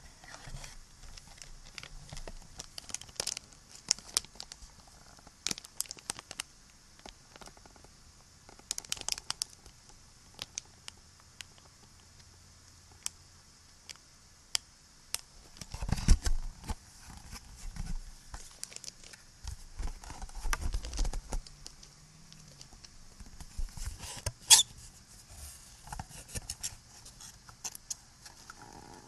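Close-miked ASMR handling sounds: irregular crinkling, scratching and light tapping of small objects right at the microphone, with a sharp click about 24 seconds in the loudest moment. A steady recording hiss runs underneath.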